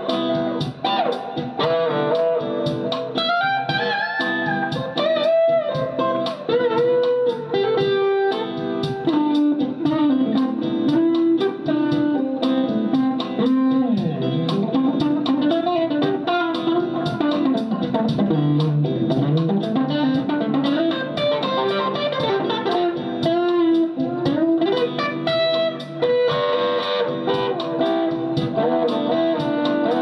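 Electric guitar (a Fender Stratocaster) improvising single-note melodic phrases on the C major scale, some notes sliding or bending in pitch, over a sustained C major 7 backing chord.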